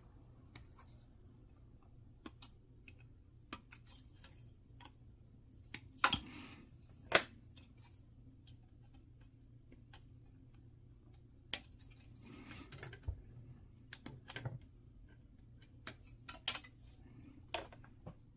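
Sharp clicks and snips of hard plastic model kit parts being cut from the runner and handled, with two loud snaps about six and seven seconds in and a run of smaller clicks later on.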